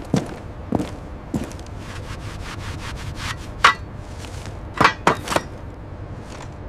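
A run of irregular knocks, like wood being struck and handled, with a few short creaks or squeaks among them, the loudest a little past halfway. Under them runs a steady low hum.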